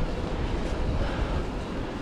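Steady wind rush on the microphone with the rolling noise of a bicycle's tyres, a fluttering low rumble under an even hiss.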